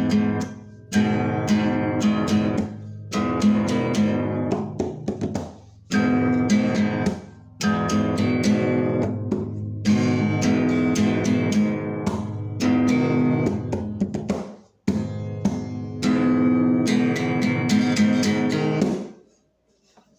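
Guitar music: a strummed guitar playing chords in phrases with brief breaks. It stops about a second before the end.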